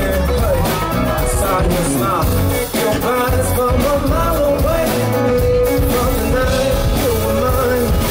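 A man singing live into a microphone with a band of electric guitar, drums and bass, with one note held steady about halfway through.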